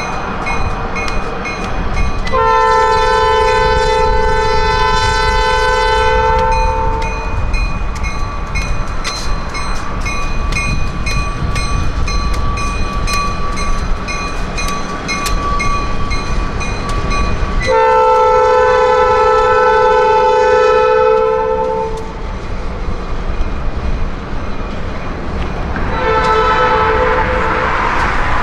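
Diesel locomotive air horn sounding a chord of several notes: two long blasts of about four to five seconds and a short one near the end. Between the blasts the passing freight train rumbles and its wheels click steadily over the rail joints, with a thin steady whine in the middle stretch.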